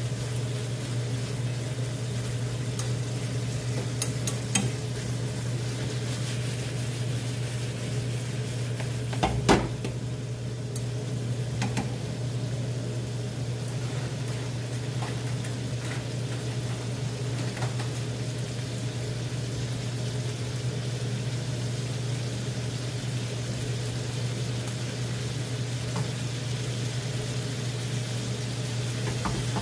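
Duck meat and sliced potatoes sizzling steadily in a frying pan over a steady low hum. A few sharp clinks of metal tongs against the pan, the loudest about nine seconds in.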